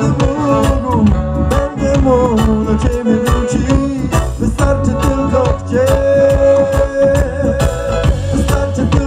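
Live reggae band playing, with drum kit and bass under a horn section of two saxophones and a French horn. A long held melody note comes in the second half.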